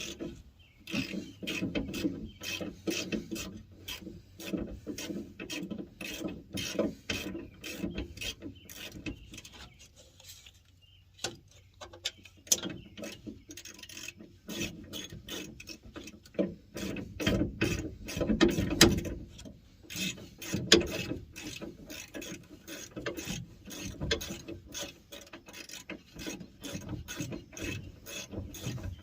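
Socket ratchet clicking in quick runs of rapid ticks as a bolt is turned, with a short pause about ten seconds in.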